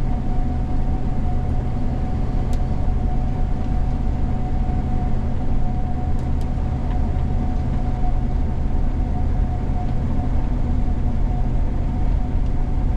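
Steady drone of a Gleaner combine heard from inside the cab while harvesting soybeans: a low engine and machinery rumble with a constant high whine over it. A couple of faint ticks sound about two and six seconds in.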